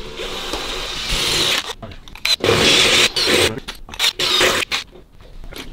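Cordless drill boring a hole through a metal motorcycle mudguard, running in stops and starts, loudest about two and a half to three seconds in and dying down near the end.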